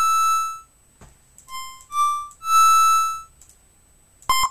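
Synthesized tones from LMMS's BitInvader synth, played as several separate notes at different pitches, each swelling in and dying away under its volume envelope. Near the end comes a short note that starts and stops abruptly with a click.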